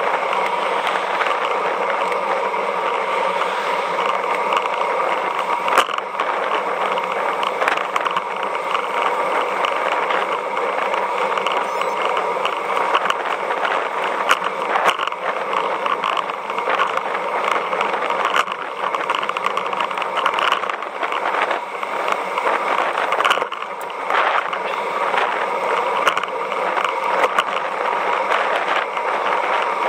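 Steady rushing road noise of road bicycles ridden at speed on asphalt, tyre hum and wind mixed together, with occasional small ticks and knocks.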